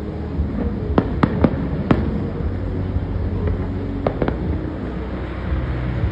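Fireworks display: four sharp bangs from bursting shells in quick succession about a second in, then two more around four seconds, over a steady low background rumble.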